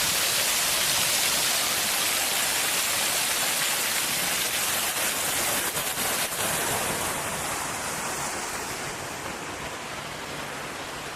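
Water splashing steadily from a park's play fountains, a continuous hiss that grows gradually quieter over the last few seconds.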